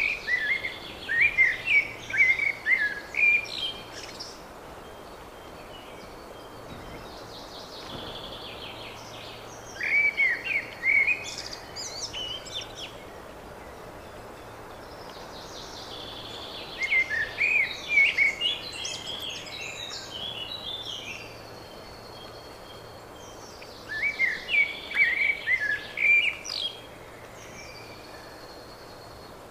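A songbird singing a series of short phrases, each a quick run of notes lasting a few seconds, repeated four times with pauses of several seconds between. Fainter calls of other birds sound in the gaps.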